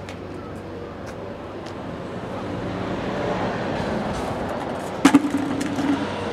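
Road traffic: a vehicle passing, its noise swelling over a couple of seconds. About five seconds in there is a sharp knock, the loudest sound, followed by a few smaller clicks.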